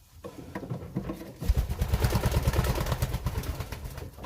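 Pigeon wings flapping: a fast run of low fluttering thumps starting about a second and a half in and lasting a couple of seconds, as a pigeon takes off and flies up to land.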